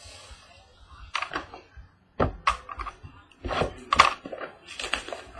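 Small cardboard trading-card mini boxes being handled and set down on a wooden tabletop: a string of separate knocks and thunks, the loudest between about two and four seconds in.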